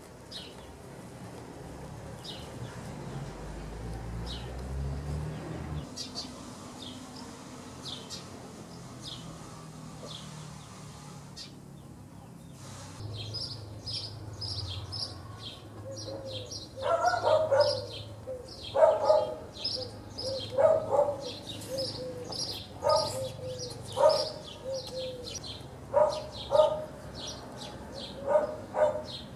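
Backyard ambience: small birds chirping, then from about halfway a dog barking again and again, roughly one bark every one to two seconds. The barks are the loudest sound. There is a low rumble around the fourth to sixth second.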